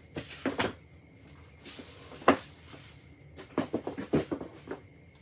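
Hard plastic graded-comic slabs being handled and set down, with light rustling of their plastic bags. One sharp knock comes about two seconds in, and a quick run of clicks and knocks follows a little later.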